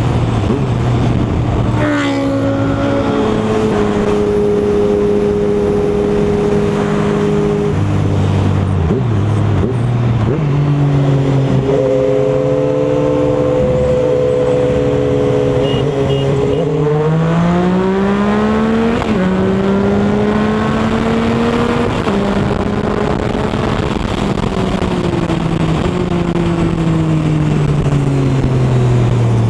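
Motorcycle engine heard from the rider's seat over steady wind rush, most likely the Triumph Speed Triple's 1050cc three-cylinder. The revs climb early on and then hold at a cruise. Around the middle they rise hard through a gear change, then the pitch falls steadily near the end as the bike slows.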